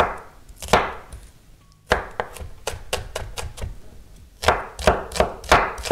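Kitchen knife slicing onions on a wooden cutting board, the blade knocking on the board in runs of quick cuts, about three a second, with short pauses between runs.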